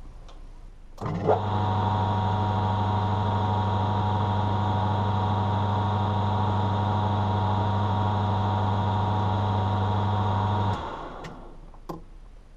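Metal lathe switched on with a click about a second in, its motor and drive running steadily with a low hum and a whine while a centre drill in the tailstock spots the end of a steel bolt shank. After about ten seconds the lathe is switched off and the sound cuts off, followed by a couple of sharp clicks.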